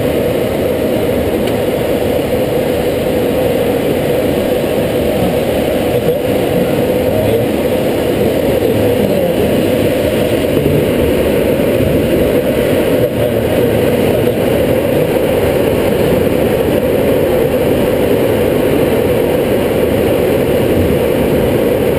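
Steady rush of airflow noise in the cockpit of a glider in flight, even and unbroken throughout.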